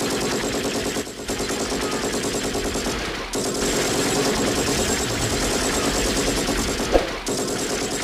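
Automatic gunfire sound effect: rapid repeated shots in four long bursts, with brief breaks about a second in, about three seconds in, and about seven seconds in.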